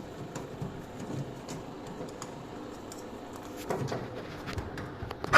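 Scattered light clicks and knocks of plastic parts being handled at a front-loading washing machine's lower access panel, ending in one loud sharp knock as the cover is pushed shut.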